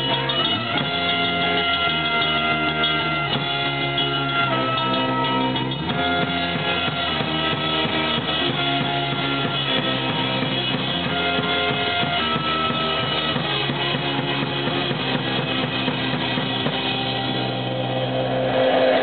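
Live band playing amplified music: electric guitar with a drum kit keeping a steady beat, with held guitar notes changing every second or two.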